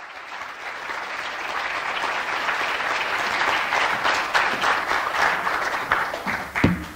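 Audience applauding: the clapping swells over the first few seconds, holds, then dies away, with a last few separate claps just before it stops.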